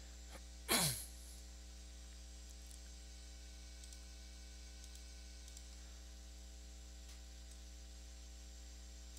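Steady electrical mains hum with faint hiss in the recording. About a second in, one short, louder sound sweeps down in pitch.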